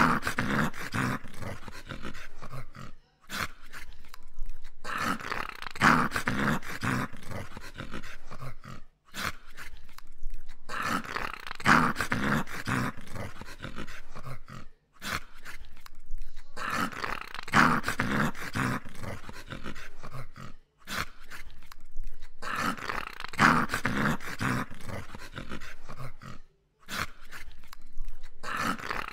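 A dog's low vocal sound, repeating in near-identical cycles about every six seconds, each broken by a brief silence.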